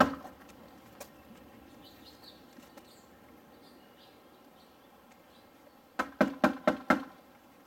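Knuckles knocking on a glass-paned exterior door: one knock right at the start, then a quick run of about six knocks within a second near the end.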